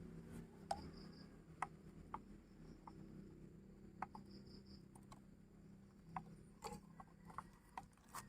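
Faint, irregular small clicks and taps of a plastic battery charger and its power cable being handled, about a dozen scattered over a low background hum.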